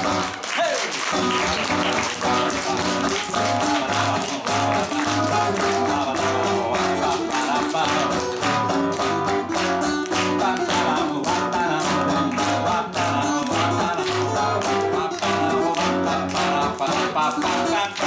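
Two acoustic guitars playing an instrumental passage together, strummed in an even rhythm.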